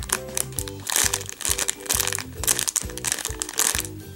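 Clear plastic packaging crinkling in quick, irregular bursts as the squishy toy inside it is handled and squeezed, over light background music.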